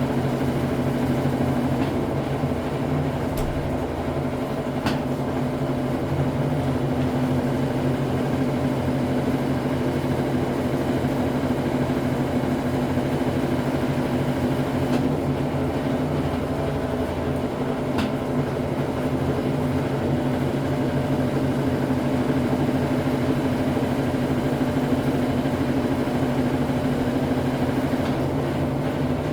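Brastemp Ative 11 kg (BWL11) top-loading washing machine in its intermediate spin: a steady motor hum over a fast low rumble from the spinning drum, with a few light ticks.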